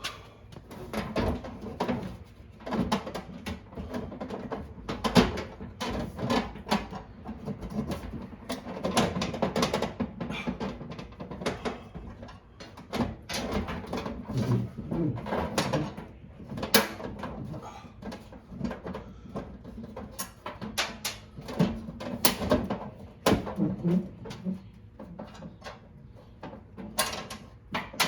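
Irregular clicks, knocks and rattles of parts and tools being handled, many in quick succession.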